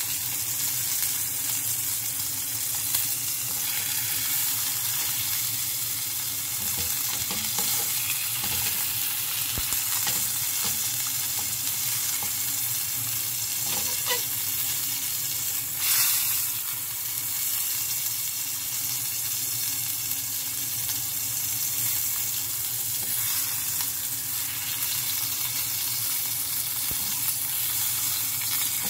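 Block of beef thigh sizzling steadily as it sears in olive oil in a hot frying pan, with a brief louder burst of sizzle about halfway through.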